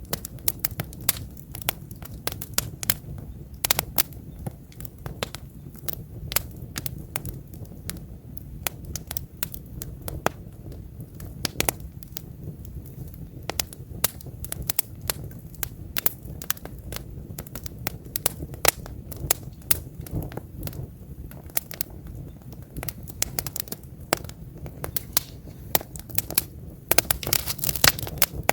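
Wood campfire burning: logs crackling and popping in many irregular sharp snaps over the fire's steady low rumble, with a denser run of pops near the end.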